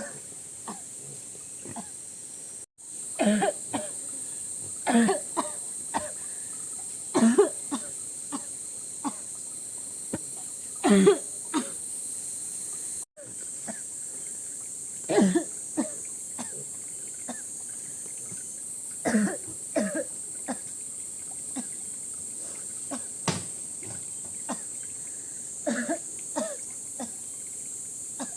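A woman coughing again and again in short fits every few seconds, a persistent cough from an illness that is getting worse.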